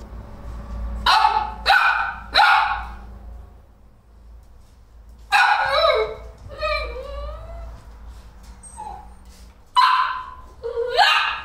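Golden retriever puppies barking and yipping in short, sharp bursts: three quick barks in the first few seconds, then another bark followed by a longer wavering howl-like call in the middle, and two more barks near the end.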